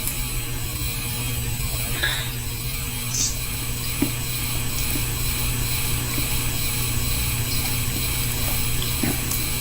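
Electric fan running steadily with a low hum, with a few faint short clicks and slurps from eating noodles with chopsticks.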